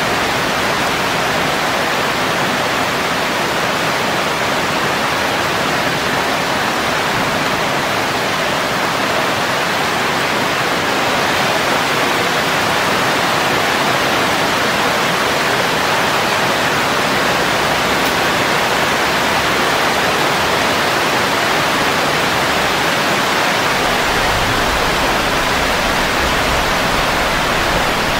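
Heavy rain falling steadily on leaves and garden plants, a constant even hiss with no distinct drops or thunder standing out.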